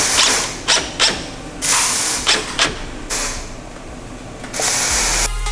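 Short bursts of scraping and clicking, with a few sharp knocks, from hand work on engine parts as a hose is fitted. A music track with a drum beat comes in near the end.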